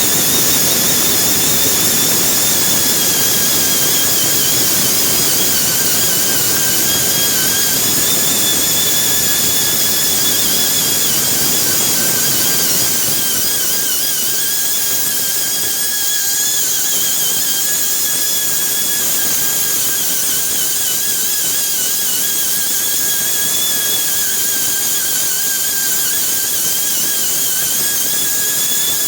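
High-speed power grinder running continuously on the tire, a steady high whine that wavers slightly in pitch over a loud grinding noise.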